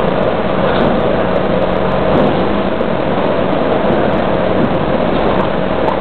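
Automated car park's lift machinery running as it raises a car on its pallet into storage: a loud, even mechanical drone with a constant hum through it.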